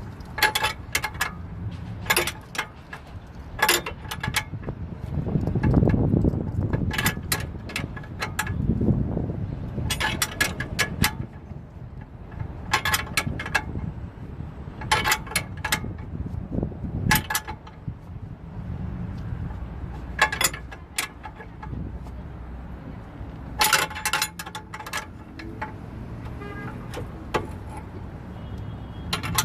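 Metal clinks and clanks of hand tools against steel suspension parts, in scattered quick clusters that ring briefly, over a low steady rumble.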